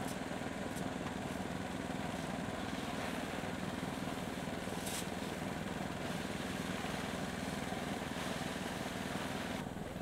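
A small engine running steadily at an even speed.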